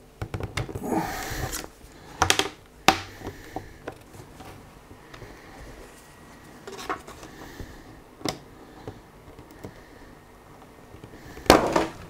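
Plastic retaining tabs of an LG Gram 16 laptop's bottom cover clicking and snapping as the panel is pried and lifted off the chassis. A handful of separate sharp clicks with handling noise between them, the loudest snap just before the end as the cover comes free.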